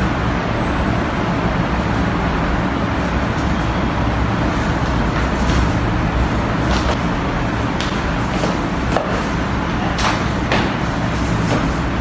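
Steady rumbling noise, like road traffic, runs throughout. Over it come several sharp slaps in the second half, about a second apart, from the partners' arms and palm strikes hitting in Wing Chun chi sau.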